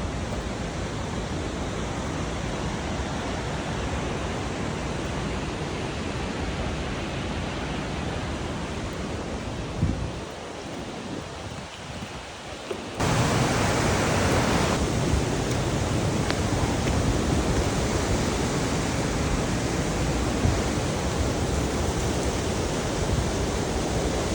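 Steady rush of flowing water, with no distinct events. About 13 seconds in it jumps abruptly to a louder, brighter rush.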